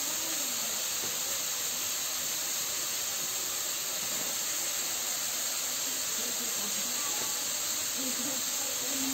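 Steady, even hiss from the stove and the wok of food frying on it, with faint voices near the end.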